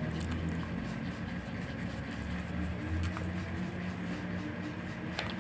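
A steady low mechanical hum, with a few faint soft clicks now and then.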